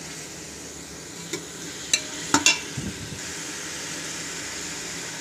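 Meat pieces sizzling in hot oil in a metal pot as they are browned with spices, stirred with a metal ladle. A few sharp clinks of the ladle against the pot come between one and three seconds in.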